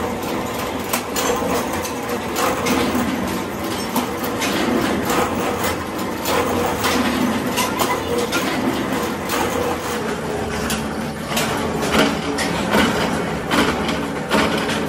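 Flywheel-driven mechanical power presses running with a steady drone, under frequent irregular metallic clanks of steel bar stock being handled and struck.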